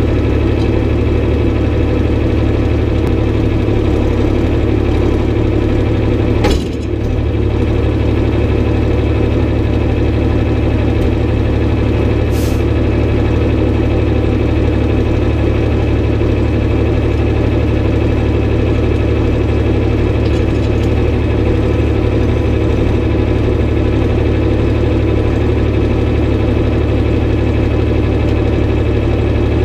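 John Deere tractor engine idling steadily, with one brief dip in engine sound about six seconds in.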